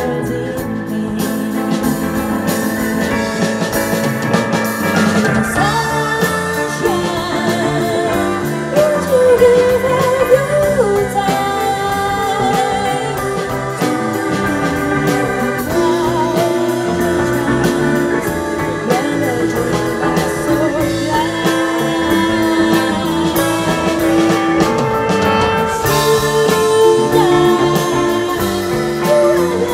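Live band performance: a woman sings with vibrato over keyboard, electric guitars and drums.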